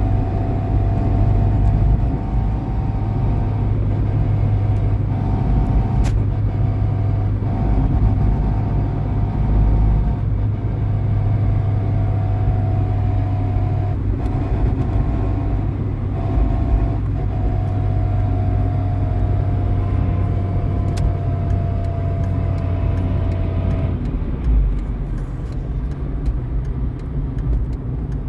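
VW Polo 6N2 1.4 MPI running over a steady low rumble, with a high whine that drifts slowly lower in pitch, breaks off briefly a few times and stops about 24 seconds in. It is the noise the owner suspects may come from the gearbox.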